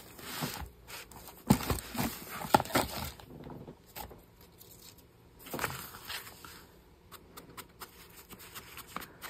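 Craft supplies being handled on a cutting mat: paper rustling and a few sharp knocks as an ink blending tool and ink pad are picked up. There are faint quick ticks near the end.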